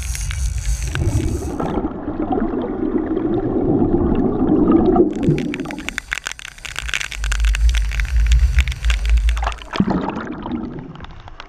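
Sport-fishing boat under way: engine rumble and wake water rushing and splashing, with wind noise on the microphone. Near the end this gives way to muffled underwater gurgling and bubbling. The sound changes abruptly a few times.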